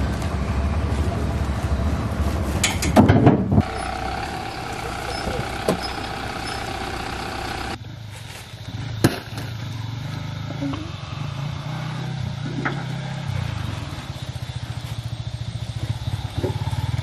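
Steady low rumble of a vehicle engine running, with a short louder noise about three seconds in and a sharp knock about nine seconds in.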